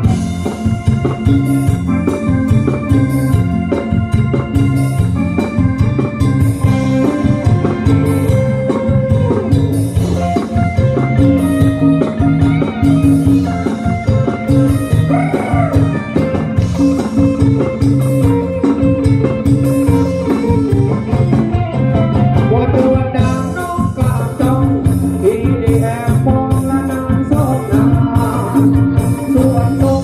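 Live Thai band playing ramwong dance music: drums, guitar and keyboard with a singer's voice over a steady beat.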